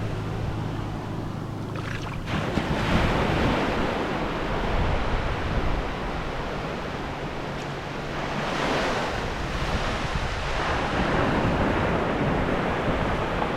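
Ocean surf washing in on the beach, with waves swelling up about two seconds in and again about eight seconds in, and wind buffeting the microphone.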